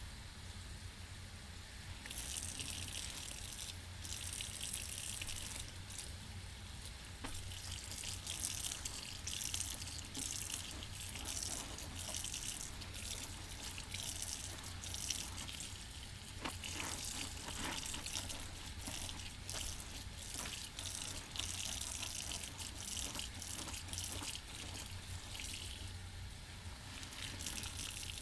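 Kitchen sponge being rinsed under running tap water and squeezed, the splashing and sloshing surging and easing every few seconds, with drips and small wet clicks.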